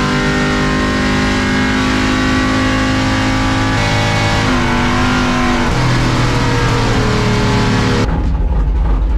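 A 700 hp C10 pickup drag truck's engine running hard on a drag-strip pass, heard from inside the cab. Its note changes in steps a couple of times, and about eight seconds in the higher sound drops away, leaving a low rumble.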